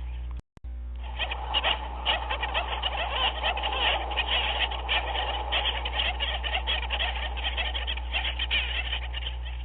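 Dense chorus of many overlapping short animal calls over a steady low hum, with a brief dropout about half a second in.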